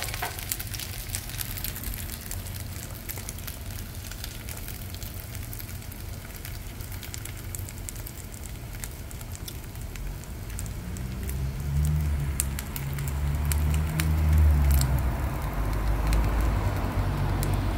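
Eggs frying in oil in a carbon steel pan: a steady fine crackle of small pops and spits. In the second half a low rumble swells up and stays loudest to the end.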